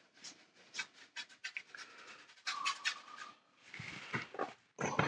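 A damp brush rubbing over textured watercolour paper in a run of short scratchy strokes, lifting paint from a dried wash, followed by more rubbing and blotting on the paper.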